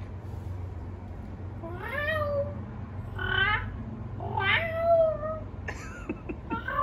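A domestic cat meowing three times, each meow about a second apart, with another meow just starting at the end.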